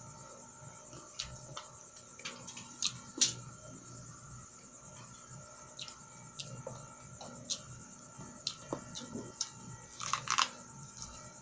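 Eating sweet corn on the cob: scattered crisp clicks and crunches of chewing, with a cluster of bites as kernels are bitten off the cob about ten seconds in.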